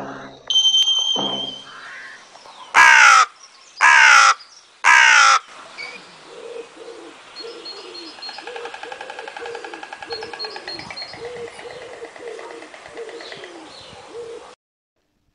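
A crow caws three times, about a second apart, each caw falling in pitch, after a brief high steady tone. A fainter mix of other bird calls follows and cuts off suddenly near the end.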